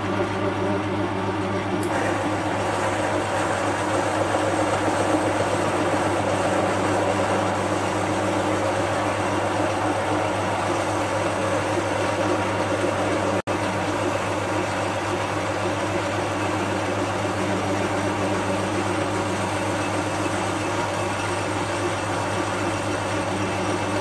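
Metal lathe running steadily while a cutting tool turns down the outside of a brass round-stock workpiece. There is a constant motor hum, the cutting noise fills in about two seconds in, and the sound drops out for an instant about halfway.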